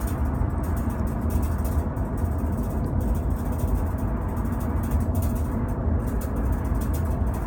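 Steady low road-and-engine rumble of a moving car, heard from inside the cabin.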